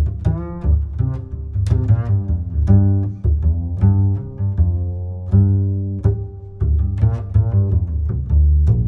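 Background music: a melody of low, plucked and bowed string notes in a quick, even rhythm.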